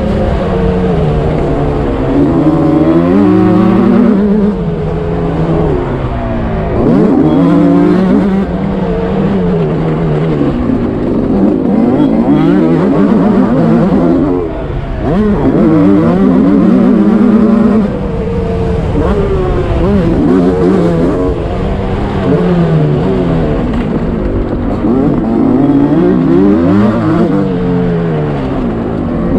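Two-stroke motocross bike engine under hard riding, its pitch climbing in repeated rising sweeps and dropping back at gear changes and when the throttle is closed for turns.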